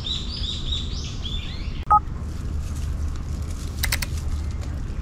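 A songbird singing a quick run of repeated chirps that stops about two seconds in, followed by a short, loud two-tone blip. A few faint clicks come near the end, over a steady low rumble.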